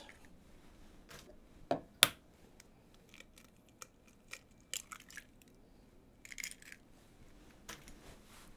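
An egg cracked on the rim of a glass measuring jug: two sharp taps about two seconds in, then faint clicks and rustling as the shell is handled.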